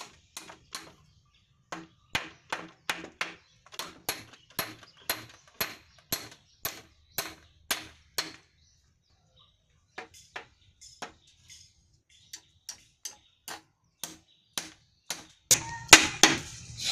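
Hammer driving nails into wooden boards: sharp, regular strikes about three a second, a pause, then slower, lighter taps, and a louder flurry of blows near the end.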